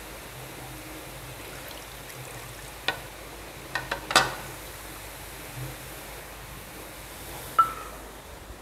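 Steady hiss from a pan of young papaya cooking on the stove, with a few sharp clinks of a utensil against the pan about three to four seconds in and once near the end.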